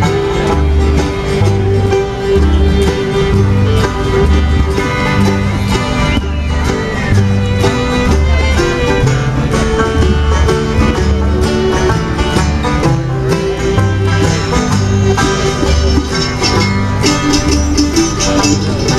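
Live bluegrass band playing an instrumental passage: quick picked string notes over a bass line that alternates between two low notes on a steady beat.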